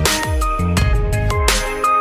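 Background music: an electronic track with deep bass notes and sharp drum hits, one at the start and another about a second and a half in.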